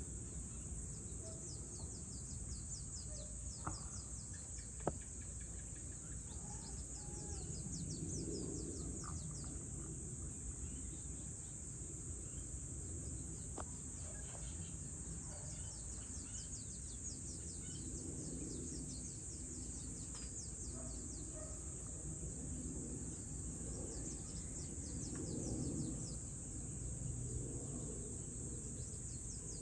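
Dusk ambience: insects trilling steadily at a high pitch, with scattered bird calls over a low background rumble. Two short sharp clicks sound about four and five seconds in.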